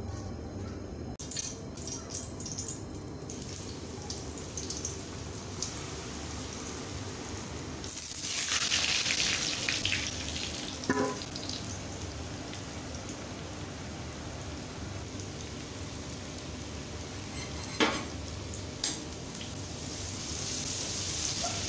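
Coated potato fries frying in hot oil in a steel wok. About eight seconds in there is a loud surge of sizzling as they go into the oil, followed by steady frying with a few clinks of a metal slotted spoon.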